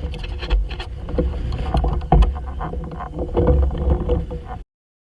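Kayak out on the water, with wind rumbling on the microphone and scattered clicks and knocks from the hull and gear. The sound cuts off abruptly near the end.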